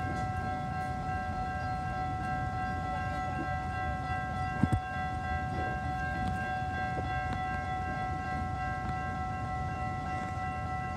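Railroad grade-crossing warning bell ringing steadily over the low rumble of a train. A single sharp knock comes about halfway through.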